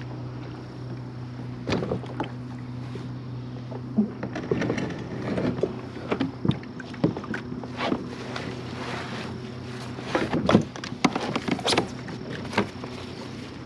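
Irregular knocks, bumps and clatter as a fishing kayak and its gear are handled and rigged, busiest through the middle and later part, over a steady low hum.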